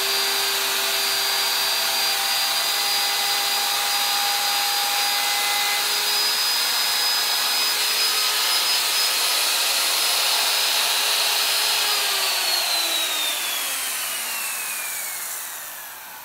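DeWalt router motor running at full speed with a steady high whine while it routes a groove in a high-density polyethylene board. About twelve seconds in it is switched off, and the whine falls in pitch as the bit spins down.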